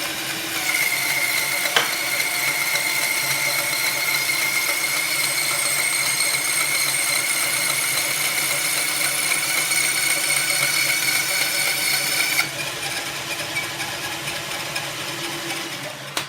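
Homemade drill-driven band saw running, a steady mechanical noise with a high whine, a single click about two seconds in. It gets quieter about twelve seconds in and cuts off sharply at the end.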